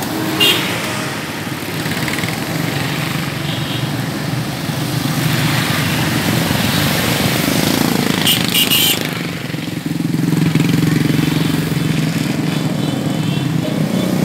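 Small motorcycles and scooters riding past in a convoy, their engines running steadily, with a few short high-pitched beeps about eight seconds in.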